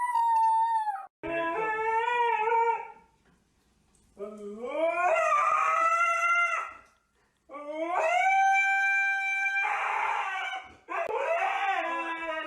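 A dog howling: a run of long howls with short breaths between, several sliding up in pitch before holding.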